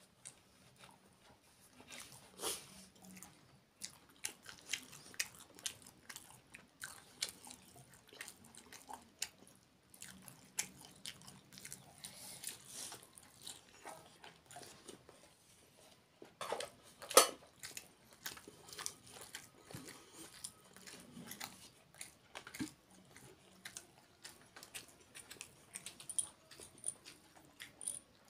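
Close-up eating sounds: chewing and wet lip smacks as rice and curry are eaten by hand, with fingers squishing the rice on the plate. The clicks come irregularly all through, and the sharpest one lands about two-thirds of the way in.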